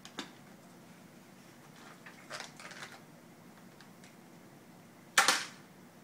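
Plastic cat-treat canister knocked over by a cat and clattering onto a tile floor about five seconds in, after a few lighter rustles and knocks as the cat handles it.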